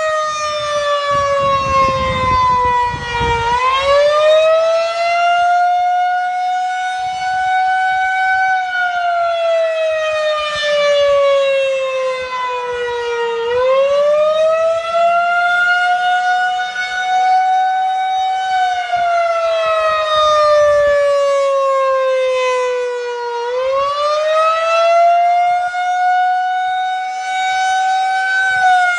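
Town fire-alarm siren sounding a slow wail, its pitch climbing for about five seconds and then sliding back down, over and over.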